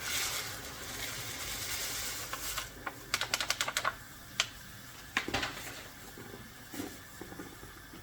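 A soft rushing hiss for the first two and a half seconds, then a quick run of light clicks about three seconds in, with a few scattered taps after.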